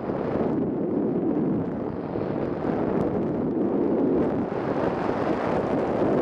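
Airflow rushing over the onboard camera of a radio-controlled Ka8b scale glider in gliding flight: a steady wind noise that swells and eases a little, with no motor tone.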